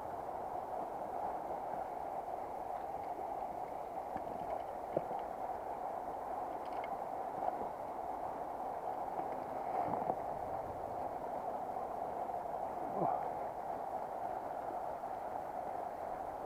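Steady rush of a shallow, stony river flowing, with a few faint knocks now and then.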